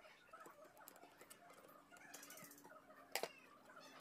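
Near silence with faint scattered clicks and taps over a faint steady hum, and one sharper click about three seconds in.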